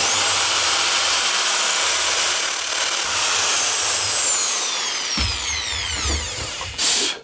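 Mains-powered Bosch electric drill in a plunge drill-stand jig, boring a 4.5 mm hole through a solid wooden Telecaster body: a steady motor whine that falls slowly in pitch from about three seconds in, with a short burst of speed near the end.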